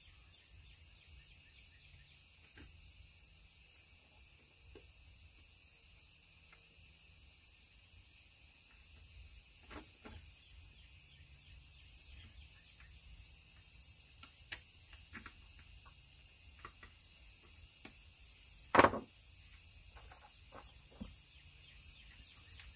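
Faint steady hiss with scattered light clicks and taps from handling the fuse box and small parts, and one sharp, much louder knock a little before the end.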